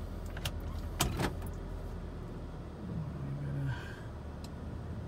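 Clicks and a louder knock about a second in, inside the cabin of a 2007 Toyota Camry Hybrid as it is switched on to READY, over a low hum that stops about two and a half seconds in.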